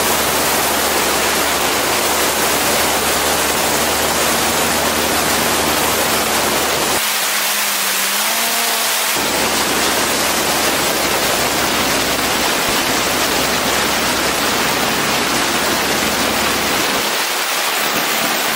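Loud, steady rush of wind over an outside-mounted camera on an Aviat Husky in flight, with the low, steady drone of its engine and propeller underneath. The drone drops out for about two seconds in the middle, then returns.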